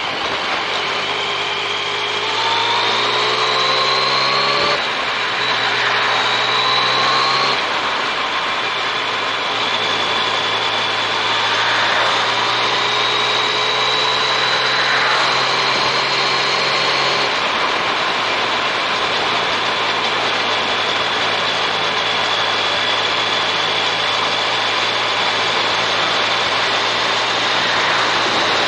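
Yamaha MT-09 Tracer's three-cylinder engine pulling up through the gears: its pitch climbs, drops at a gear change about five seconds in and again near eight seconds, climbs slowly once more and then holds steady at cruising speed, with wind rushing over the camera.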